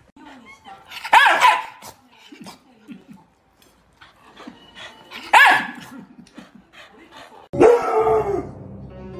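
A dog barking: two loud, drawn-out barks about four seconds apart, then a third call falling in pitch near the end.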